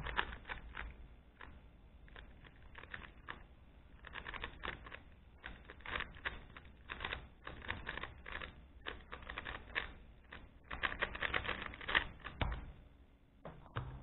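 Rubik's Speedcube (made with GAN) 3x3 puzzle cube being turned at speedsolving pace: a pretty loud, rapid clatter of plastic layer turns in quick flurries separated by brief pauses. It stops about 12.5 seconds in, followed by a single knock about a second later.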